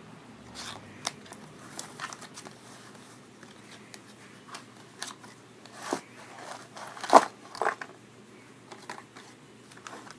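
Metal handcuffs and their packaging being handled: scattered clicks and light rustling, with the loudest clack about seven seconds in.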